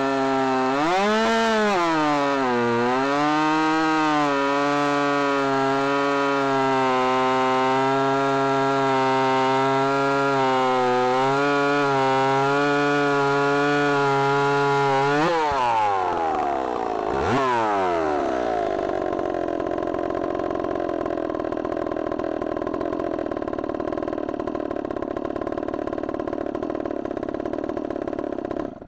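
Stihl MS270 two-stroke chainsaw, its lower transfers ported, running at high speed with its pitch sagging and recovering about a second in, as in a cut. About halfway through it revs up and down sharply, then runs on with a rougher, less steady sound.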